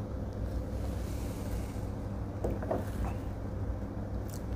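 A man sipping whisky from a small tasting glass: faint mouth and swallowing sounds over a steady low room hum, then a light click near the end as the glass is set down on the table.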